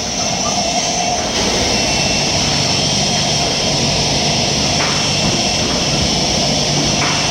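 Printing machinery in a packaging factory running steadily, a loud, constant mechanical noise with a high hiss over a low hum.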